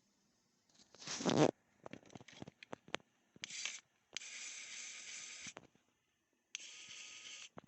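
Kaiweets ES20 electric precision screwdriver's small motor run in short bursts: a loud noisy burst about a second in, a few quick clicks, then two steady runs of about a second and a half and about a second.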